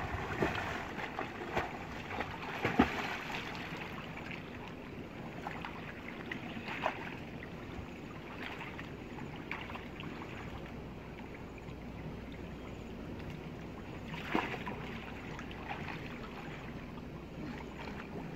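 River water sloshing and splashing around people wading and swimming, with a few sharp splashes, the loudest about three seconds in and another about fourteen seconds in.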